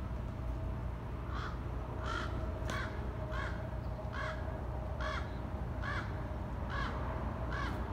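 A bird calling in a steady series of short, harsh calls, about nine of them, a little more than one a second.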